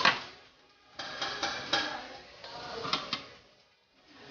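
A cooking utensil clattering and scraping against a large metal pan while tossing a panful of noodles, in a few quick bursts of knocks: one at the start, a run about a second in, and another around three seconds in.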